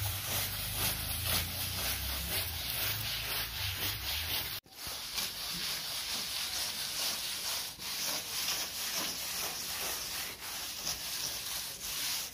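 A wet sponge pad rubbed back and forth over freshly wetted cement-sand plaster, smoothing it, as a run of quick scratchy strokes. The sound cuts out abruptly for an instant about four and a half seconds in.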